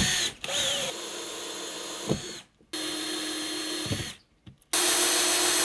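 Cordless drill boring sensor holes through a plastic car bumper cover. It runs in short bursts of about a second and a half, stopping and starting again several times, with a high whine that drops away as the motor stops each time.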